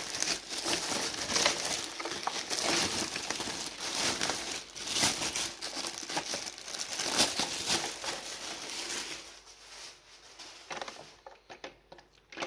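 Packaging crinkling and rustling as it is handled, a dense crackly rustle that dies down after about nine seconds to a few faint clicks.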